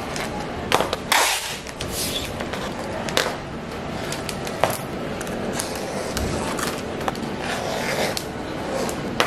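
Packing tape being pulled off its roll in short rasping tears and pressed down by hand onto a sheet, with scattered clicks and rustles; the loudest rasp comes about a second in.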